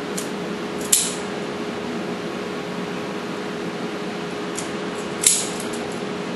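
Handheld cable-stripping tool snapping twice, about four seconds apart, as it cuts through a power cable's insulation, with a few faint ticks and a steady hum underneath.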